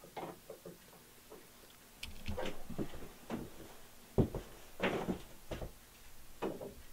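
Quick-action bar clamps being fitted and squeezed tight on a wooden fence strip on a table-saw top: irregular clicks from the clamp triggers and knocks of clamp and wood against the metal table, the loudest about four seconds in.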